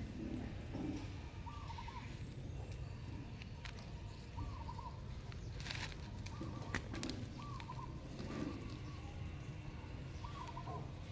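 Birds calling: a short wavering call repeated about every two seconds, with some low cooing, over a steady low background rumble. A few sharp clicks come just past the middle.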